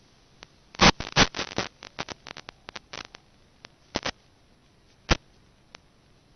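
Irregular electrical crackling over a faint hiss, a static-laden audio track that carries no real sound because no microphone is fitted. A dense run of sharp clicks comes about a second in, then scattered single clicks, with one more loud pop near five seconds.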